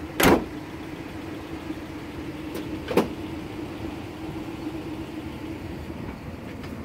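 The 1949 Ford's engine idling steadily, with two sharp knocks: a loud one just after the start and a lighter one about three seconds in.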